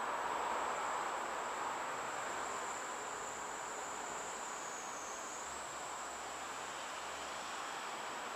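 Steady hiss of static from a Baofeng UV-3R handheld radio, with a faint high-pitched tone above it. The radio is picking up only noise while the out-of-range school ground station asks its question to the International Space Station.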